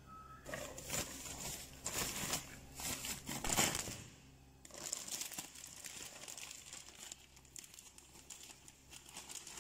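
Plastic inner bag of a boxed chocolate cake mix crinkling in irregular bursts for about four seconds as it is handled, then softer rustling as the powdered mix is poured out of it into a bowl.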